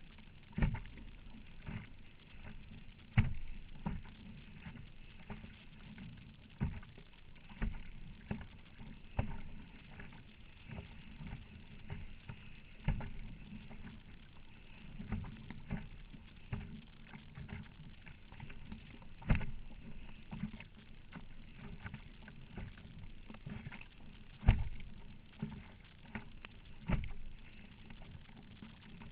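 Strong wind rumbling on the microphone, with irregular thumps and splashes of choppy water hitting a Perception Scooter sit-on-top kayak, every second or few, a few much harder than the rest.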